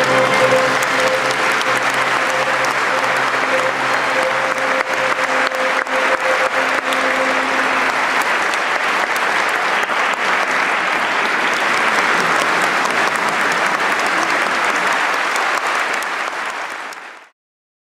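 Large audience applauding steadily. A violin holds one long note over the clapping for the first half. The applause then dies away quickly near the end.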